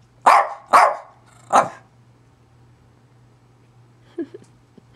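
Jack Russell terrier giving three sharp, quick barks in the first two seconds. These are demand barks, the dog urging her owner to get out of bed.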